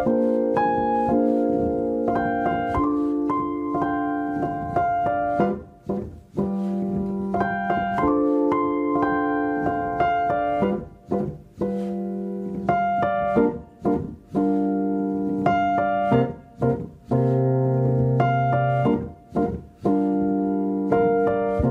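Solo piano music: held chords with single notes struck over them. The sound drops out briefly several times.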